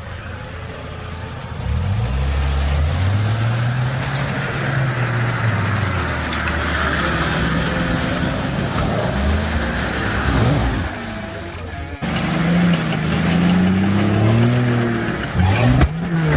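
Off-road 4x4's engine revving up and down repeatedly, its pitch rising and falling. The sound breaks off sharply about twelve seconds in and resumes with more revving.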